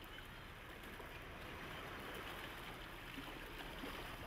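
Steady, faint background hiss with a few soft clicks.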